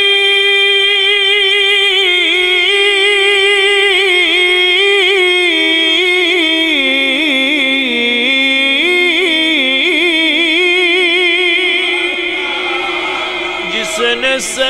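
Solo male voice singing a naat, drawing out one long melismatic note with no words, the pitch wavering and stepping down and back up. It breaks off with a few short clicks near the end.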